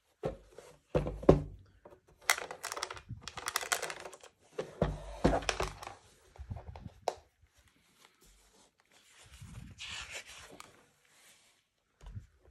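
Hands handling a large old hardback book: two knocks of the board covers about a second in, then rubbing, scraping and paper rustling as the cover is opened and pages are turned.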